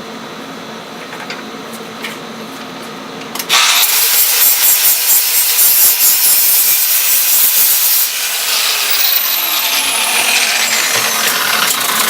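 An abrasive power tool grinding or sanding aluminum flat stock: a steady, loud hiss that starts about three and a half seconds in and runs on without strokes. The metal heats up and gets sticky under the abrasive.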